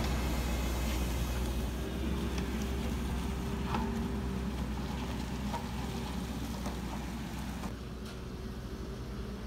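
Diesel engine of a JCB single-drum road roller running with a steady low hum, fading gradually as the roller moves away.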